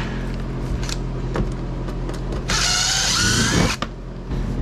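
Cordless drill-driver running in a single burst of just over a second, a little past halfway, backing screws out of a boat seat's base plate. A few light clicks of handling come before it.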